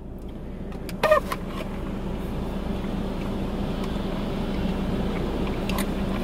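Steady low hum and hiss inside a car in the rain, growing slowly louder, with one short soft sound about a second in.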